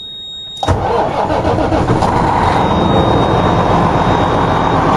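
Semi-truck's engine starting on the key about half a second in, catching at once and then idling steadily.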